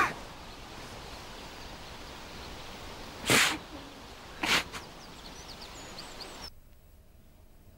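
A man sobbing, with two loud sharp breaths about a second apart, over steady outdoor background noise with a few faint bird chirps. About six and a half seconds in, the background drops to quiet room tone.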